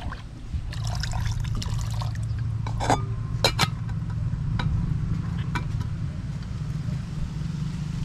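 Water sloshing in a metal camping pot, then sharp metallic clinks about three seconds in as the pot and its lid are set on the stove, with a steady low rumble underneath.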